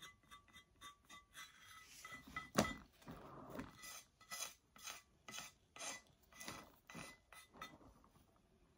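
Faint scraping and rubbing with a run of light clicks and one sharper knock about two and a half seconds in, from a plastic turntable being turned by hand under a painted tile while a paper towel wipes the tile's edge.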